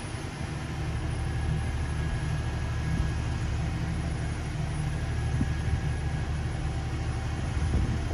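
Crane's engine running steadily during the lift, an even low rumble.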